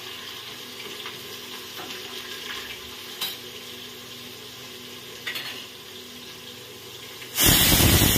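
Sliced onions frying in hot oil in a steel pressure cooker: a steady sizzle with a few light clicks of a spoon or pot. Near the end comes a loud burst of noise about a second long.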